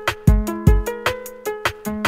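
Background music with a steady beat of deep drum hits under held melodic notes.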